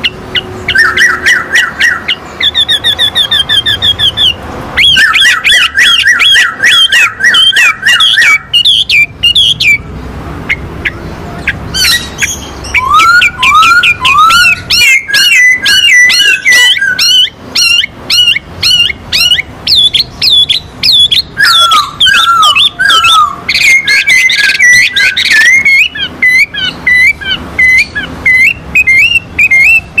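Caged songbirds, a poksay hongkong (Chinese hwamei) and a wambi, singing loud, varied whistled song. It has fast runs of repeated notes and rising slurred whistles, and eases off briefly about ten seconds in before resuming.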